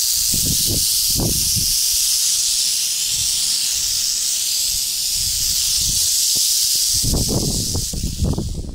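Several rattlesnakes rattling together in a continuous high, wavering buzz that cuts off near the end. Low thuds and rustling come in the first second or so and again near the end.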